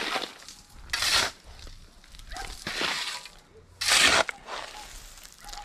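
A shovel scraping and scooping loose fill, three strokes about a second and a half apart.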